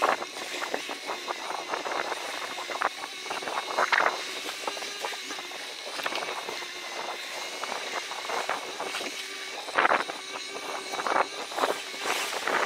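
Bicycle riding over a rough woodland trail: a steady rolling noise full of rapid clicks and rattles, with harder knocks about four and ten seconds in.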